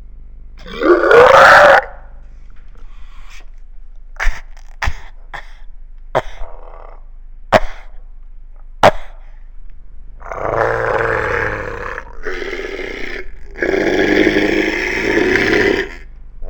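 People imitating cows with their voices into a microphone: a loud call that rises in pitch about a second in, several sharp clicks through the middle, then two long, low grunting noises in the last third.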